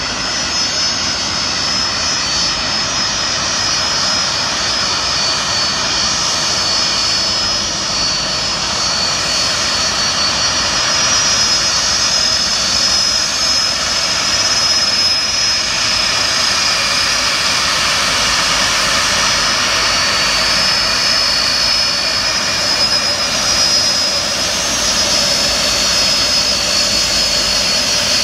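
Boeing 757's twin turbofan engines at taxi power: a steady rushing noise with a high whine, growing a little louder over the first dozen seconds as the jet comes closer, then holding steady.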